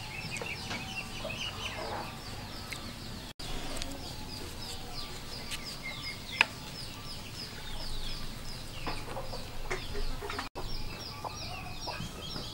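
Chickens clucking over a continuous run of quick, high chirping, with one sharp click about six seconds in.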